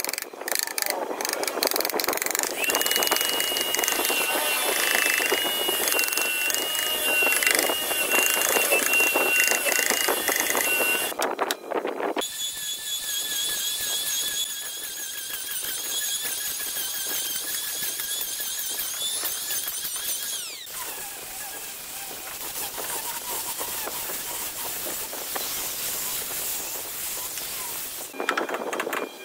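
For about the first ten seconds a high steady whine runs over rapid clatter. After a short break, an electric hand planer's motor runs with a steady high whine, which falls in pitch as the motor winds down about twenty seconds in, leaving a lower steady hum.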